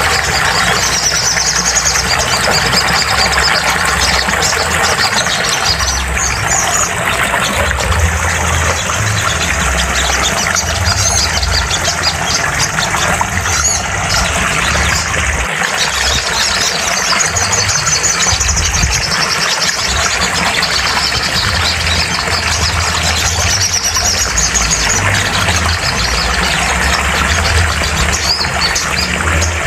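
Sogon songbird singing, a series of rapid, high trilled phrases repeated every few seconds, over a steady loud hum and hiss.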